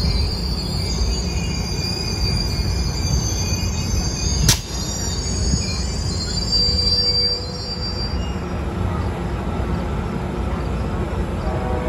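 Amtrak California bilevel passenger cars rolling slowly past with a low rumble, their wheels squealing in high tones that fade out about two-thirds of the way through. One sharp click about four and a half seconds in, and a train horn starts to sound right at the end.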